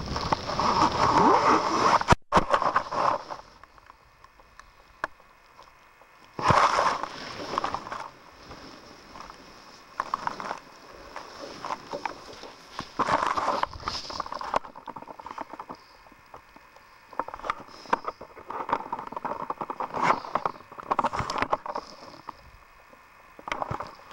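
Wind rushing over the microphone of a hang glider's camera on final approach. It cuts out abruptly about two seconds in, as the hard landing breaks the camera off its mount. After that the fallen camera lies in dry grass, picking up irregular bursts of wind and grass rustling and scraping against it.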